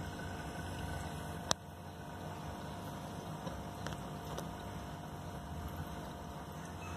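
Steady low hum and hiss of aquarium filtration running, the tank fitted with air-driven sponge filters. A single sharp click about a second and a half in, and two fainter clicks around four seconds in.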